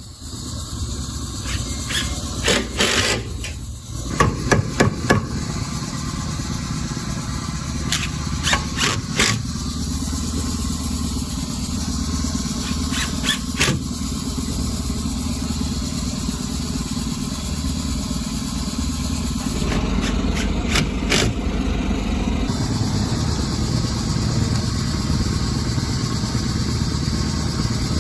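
Hammer blows in short clusters, a few strikes at a time, over a steady low engine-like rumble.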